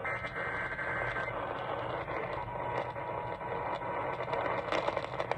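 Radio static: a steady hiss from a receiver between broadcast alerts, with a faint thin tone coming in about halfway through.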